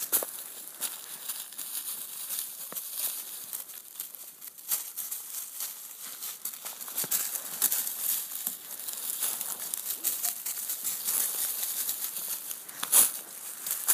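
Footsteps of a person and a dog crunching and rustling through dry fallen leaves, in an irregular run of crackles with a couple of louder crunches near the end.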